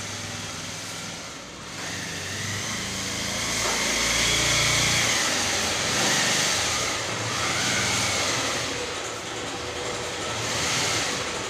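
Motor vehicle engine noise with a steady hiss, swelling to its loudest around the middle and easing off again.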